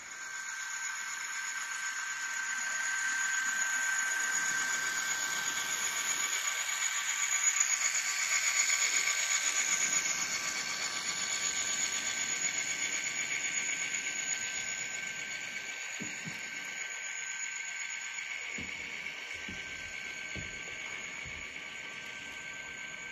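Sound decoder in an N scale Bachmann Dash 8-40CW model locomotive playing diesel engine sound through its tiny speaker as the model runs past. The sound is thin with little bass, swells to a peak about halfway through and eases off, with a few light clicks near the end.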